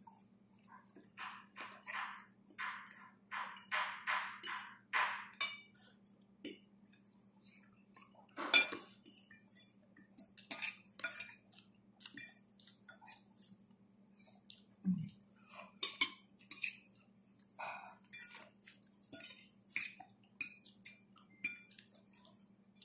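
Metal forks clinking and scraping on plates while eating, with close chewing noises between the clinks; one sharp clink about eight and a half seconds in is the loudest. A faint steady hum runs underneath.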